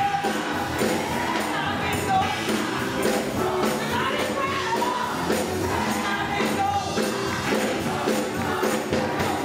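Gospel choir singing with band accompaniment and a steady tambourine beat.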